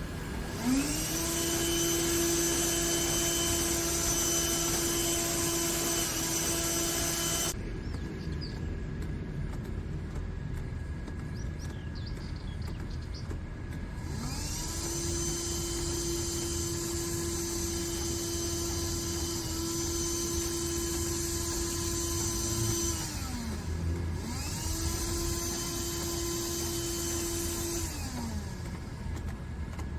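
Onboard vacuum cleaner of a legged litter-collecting robot switching on three times to suck up cigarette butts through its foot nozzles. Each time its motor whines up to speed and runs for several seconds. The first run cuts off sharply and the later two wind down. A steady low mechanical hum runs underneath.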